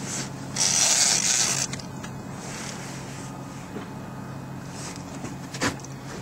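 Fishing reel and rod creaking mechanically as a large fish is fought from a boat, over a steady low hum. A loud rushing noise comes about half a second in and lasts about a second, and there is a sharp click near the end.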